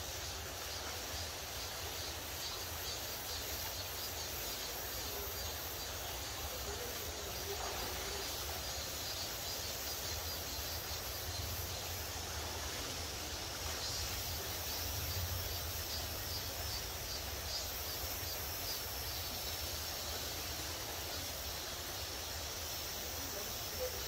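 Shallow mountain stream running over rocks, a steady even rush of water.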